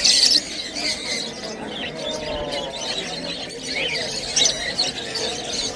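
Caged parrot-type birds screeching in short, shrill calls, one at the start and another about four and a half seconds in, over a low murmur of background chatter.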